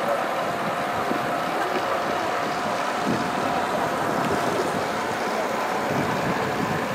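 Steady rushing wind noise on the microphone, with a faint steady hum running under it.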